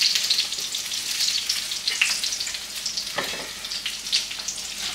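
Meat cutlets frying in hot oil in a pan, a steady sizzle with constant small crackles and spatters, and a brief knock about three seconds in.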